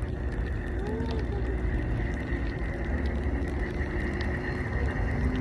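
Snowy street ambience: a steady low rumble with scattered light crackling ticks, and a car driving by on the snow-covered road.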